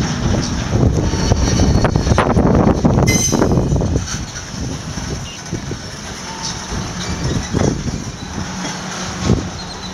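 Empty freight flatcars rolling slowly past on the rails, a steady low rumble with scattered clanks and knocks. It is louder in the first few seconds, then eases.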